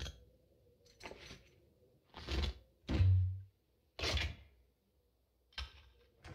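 Film sound effects of metal parts and tools being worked on a chainsaw: a series of sharp clanks and thunks, roughly one a second, the loudest about three seconds in with a brief low hum under it.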